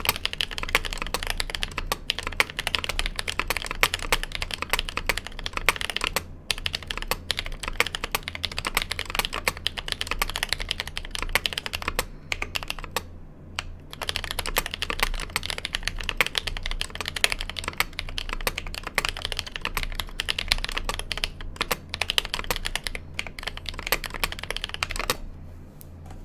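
Fast typing on a custom 60% mechanical keyboard with lubed Holy Panda tactile switches in an aluminium case with a steel plate and GMK doubleshot keycaps: a dense, even clatter of key presses. It breaks off briefly twice and stops about a second before the end.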